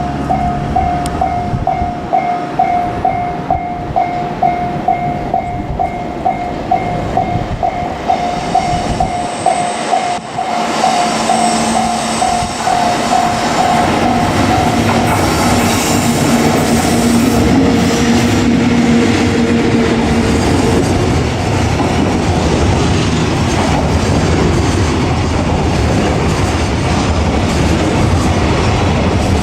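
A Japanese level-crossing warning bell rings in a steady ding-ding rhythm, about two strokes a second. About ten seconds in, a JR Freight ED76 electric locomotive and its freight wagons pass with a loud, even rumble and a steady motor hum. The bell fades out about halfway.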